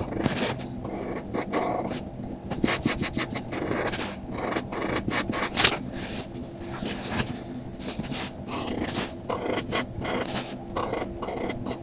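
Quick, irregular scratchy strokes of a tool working on paper card, as in marker or pen colouring, with a low steady hum underneath.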